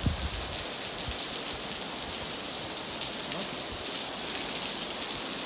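Heavy rain pouring steadily onto a stone patio and pool, an even hiss, with a brief thump right at the start.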